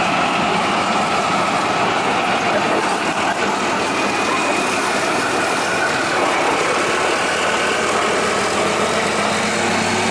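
Leopard 2 main battle tanks' V12 diesel engines idling steadily.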